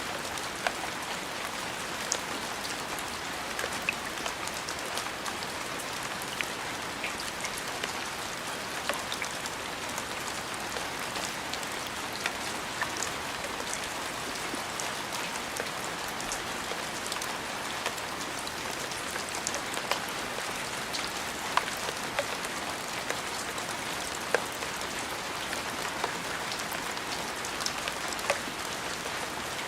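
Steady rain falling, a constant hiss with many scattered sharp ticks of single drops striking a surface.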